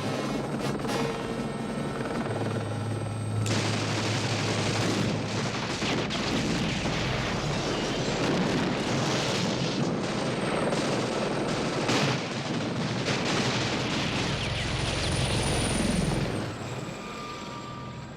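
A helicopter running overhead, then, from about three and a half seconds in, a long rapid stream of 20 mm six-barrel rotary-cannon fire with shattering impacts on targets. The fire stops about sixteen seconds in.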